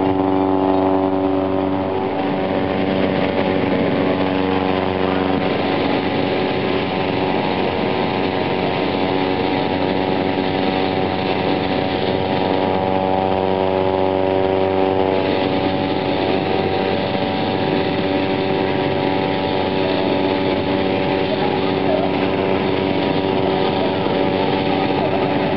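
A small engine running steadily at a constant speed, with voices in the background.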